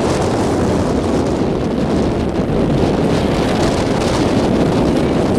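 Strong wind buffeting the microphone in a loud, steady rush, with water splashing and rushing past a boat's hull underneath.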